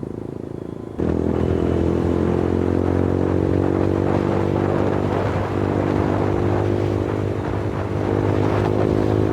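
Suzuki Gixxer motorcycle's single-cylinder engine and exhaust running at a steady engine speed while riding, with road noise. It gets abruptly louder about a second in, then holds steady.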